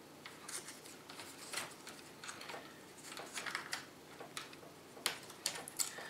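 Light, scattered clicks and rustles of a circuit board and its wiring connector being handled: an LCD TV's backlight inverter board turned over in the fingers while its cable is traced.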